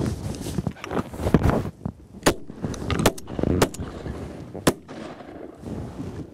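Several shotgun shots fired in quick succession at passing ducks, sharp reports spread over about two and a half seconds.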